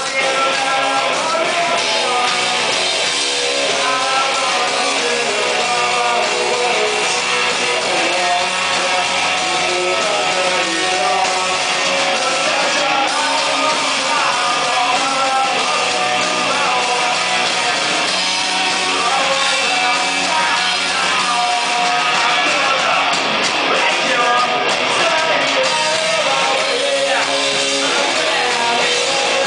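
Rock band playing live, loud: electric guitars and drums with a lead singer.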